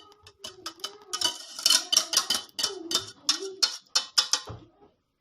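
A kitchen utensil scraping against a dish in quick repeated strokes, about three a second, as thick lemon pastry cream is scooped out and spread over a cake; the strokes stop about four and a half seconds in, with a faint wavering hum beneath.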